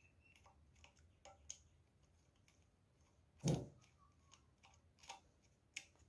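Small screwdriver working the screws of a plastic terminal block on the fan motor: faint, scattered metal clicks and scrapes. One louder thump about three and a half seconds in.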